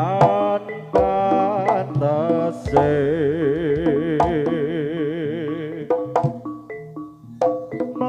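Live Javanese Jaranan music: a melody line with wide vibrato over hand-drum strokes. About six seconds in the melody drops out, leaving sparse drum strokes and short ringing metal strikes.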